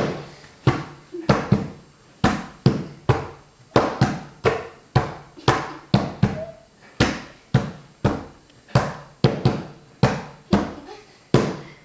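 Hands slapping a tabletop one after another in turn, about two slaps a second, a round of the hand-slapping game. Now and then two slaps come in quick succession, the double slap that reverses the direction of play.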